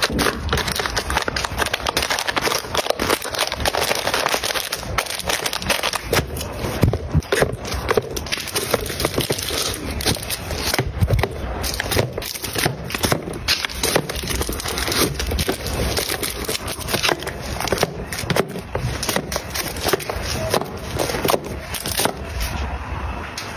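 Paper drink cartons and plastic-wrapped snacks being set one by one into a plastic trolley basket: a continuous run of taps, light knocks, scrapes and packaging crinkles.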